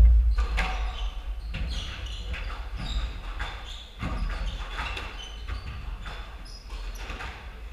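Squash rally on a hardwood court: the ball knocking sharply off rackets, walls and floor again and again, with sneakers squeaking on the wooden floor. A heavy thud comes right at the start.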